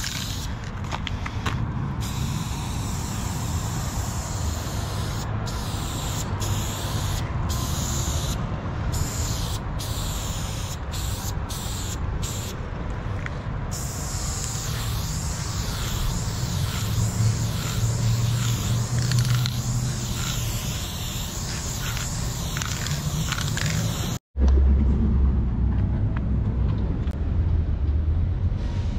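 Aerosol spray paint can hissing in long sprays with short breaks between them. Near the end the hiss stops at a sudden brief dropout, and a louder low rumble takes over.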